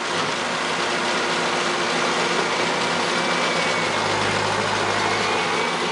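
Tractor engine and round baler running steadily as the baler begins forming a new bale after ejecting a finished one, with a deeper hum swelling about two-thirds of the way through.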